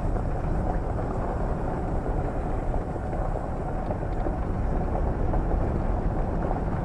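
Steady road and engine noise inside a moving van's cab, a low, even rumble with some wind.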